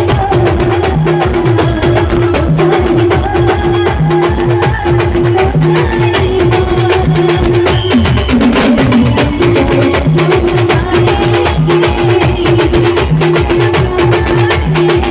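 Adivasi timli band music: fast, steady drum and percussion strokes under a short pitched riff repeated over and over. The riff drops out briefly about halfway through for a warbling run, then comes back.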